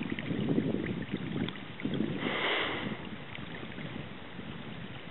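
Water swishing and lapping around a canoe on a fast river, mixed with wind gusting on the microphone in uneven swells. A brief louder swish comes a little past two seconds in.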